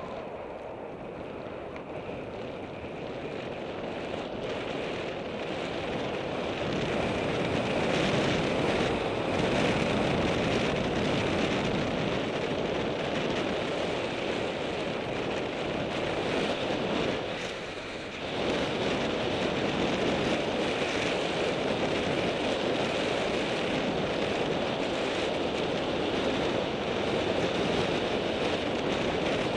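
Wind rushing over the microphone on a fast downhill run along an asphalt road, mixed with rolling noise. It builds as speed picks up over the first several seconds, drops briefly about two-thirds of the way through, then holds steady.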